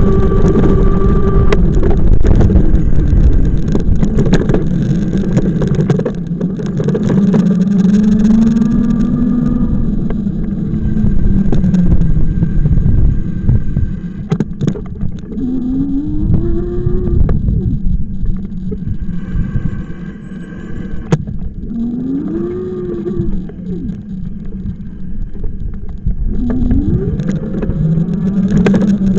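Engine of a moving vehicle running under way, its pitch climbing several times as it accelerates, over a constant rumble of wind and road noise.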